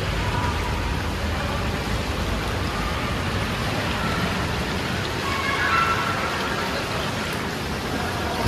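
Steady rushing and hissing of running water on a pool waterslide, even and rain-like.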